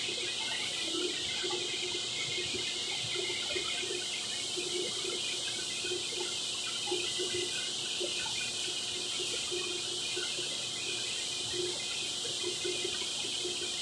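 Steady hiss and hum of running factory machinery: an even high hiss over a constant low hum.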